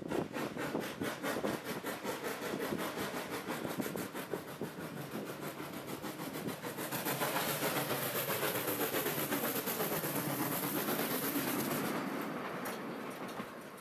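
1907 SJ class E2 steam locomotive running past close by, with a fast, even beat of exhaust chuffs. It grows louder about seven seconds in as the engine draws level, with a strong hiss of steam, then eases off near the end.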